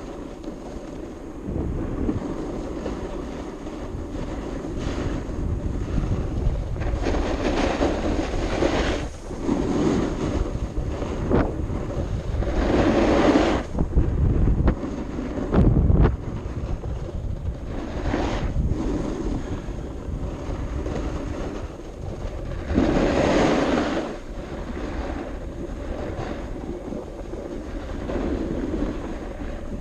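Wind buffeting the microphone, a steady rush of noise that swells into louder gusts several times.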